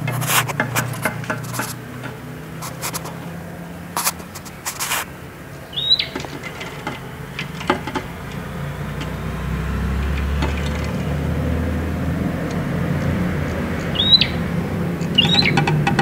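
A prinia gives three short chirps, each a quick note hooking upward, about six seconds in and twice near the end. Scattered sharp taps and clicks come between the chirps, with a low hum underneath.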